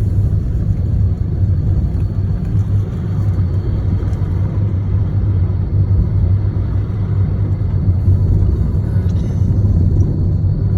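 A steady low rumble with a deep, even hum, like a motor vehicle's engine running.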